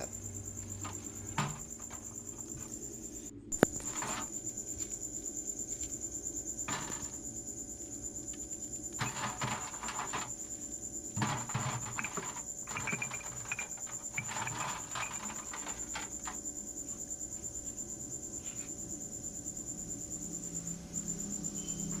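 Steady high chirring of crickets, with scattered knocks and scrapes as solid ice blocks are handled in a refrigerator's freezer compartment, and one sharp click about three and a half seconds in.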